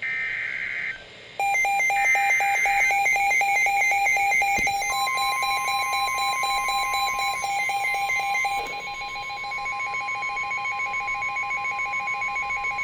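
NOAA Weather Radio EAS alert for a new severe thunderstorm warning. It opens with short bursts of SAME header data tones, then a weather radio receiver's fast beeping alarm starts. From about five seconds in, the steady 1050 Hz warning alert tone sounds alongside the beeps.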